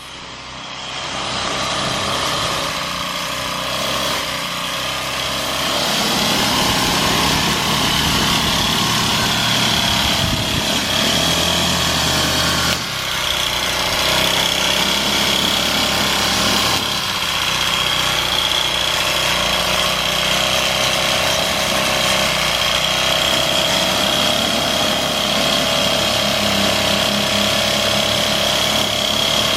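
Small engine-driven power tool running steadily at high speed. It builds up over the first few seconds and dips briefly about halfway through.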